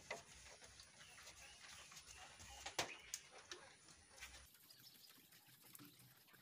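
Near silence: faint strokes of a paintbrush on a plywood door, with one sharp click a little before three seconds in.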